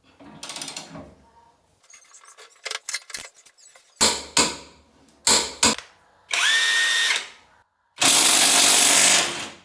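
Makita impact wrench triggered in short bursts: two pairs of quick blips, then a run of under a second with a brief rising motor whine, then a longer loud run of about a second and a half near the end. Lighter clicks and handling noise come before the bursts.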